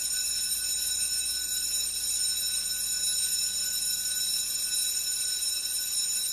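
A steady, high-pitched ringing tone like an electric alarm or buzzer, holding at one pitch without pulsing.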